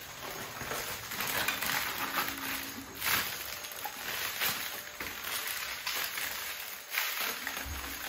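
Front-loading LG Objet WashTower washer drum turning at the start of a cycle while it senses the load to set the wash time: soft, irregular swishing and patter of laundry tumbling, with a few louder swishes and a faint low hum about two seconds in.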